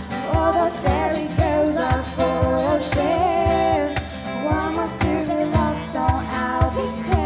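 Vocal ensemble singing in harmony over a steady beat, several voices holding and gliding between notes together.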